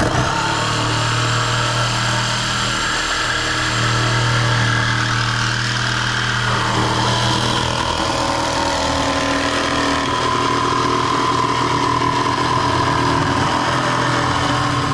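A power tool's motor running steadily at full speed, switched on abruptly and cut off abruptly about fifteen seconds later.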